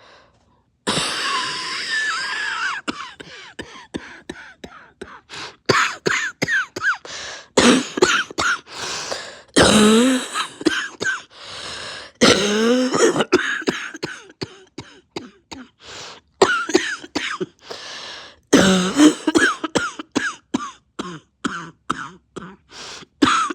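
A person coughing in repeated fits: many short coughs in quick runs, a few longer drawn-out coughs, and throat clearing between them.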